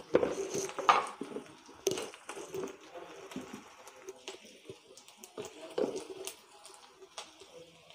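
Steel ladle stirring and scraping chopped onions and capsicum in a kadhai, with irregular clinks and scrapes, the loudest in the first two seconds.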